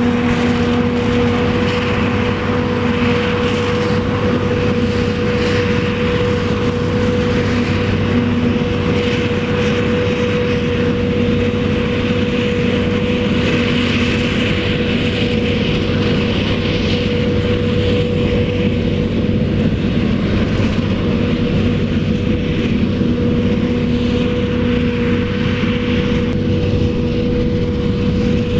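Heavy maize-harvesting machinery, a forage harvester and tractors, running steadily with a constant whine over the engine noise.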